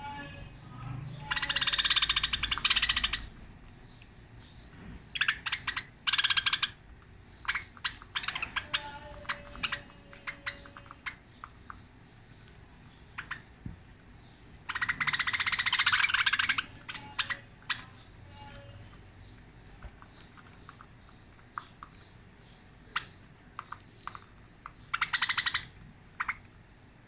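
Budgerigars chattering in four loud, harsh bursts, with many small scattered clicks between as they peck seed from a hand.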